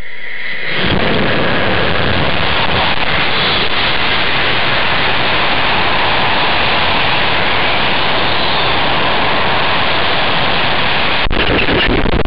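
A loud, steady rushing roar starts about a second in as the potassium nitrate–sugar rocket lifts off, heard from the camera riding on it: motor noise and air rushing over the on-board microphone during the climb. Near the end there is a sharp click followed by a louder rumbling, about when the parachute ejects early, some ten seconds after launch.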